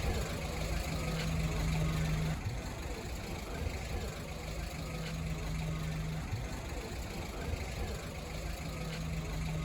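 An engine running steadily at low revs, with a low hum that comes and goes three times.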